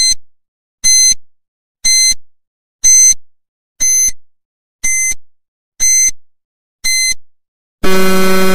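Countdown timer sound effect: a short high electronic beep once a second, eight times, ticking off the seconds. A louder, lower buzzer sounds near the end as the countdown runs out.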